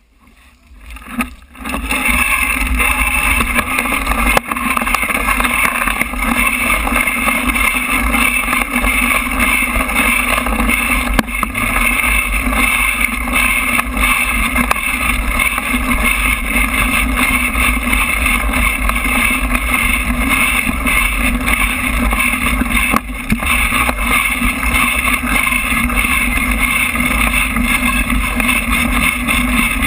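Mountain bike riding over a dirt track, heard through a bike-mounted action camera: the loud, steady rush of wind and tyre rumble starts about a second and a half in as the bike gets moving, with a few knocks from bumps in the track.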